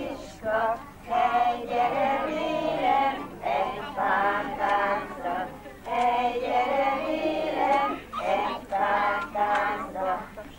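Women and small children singing a Hungarian song together in short phrases with brief pauses, a group song for a toddlers' dance.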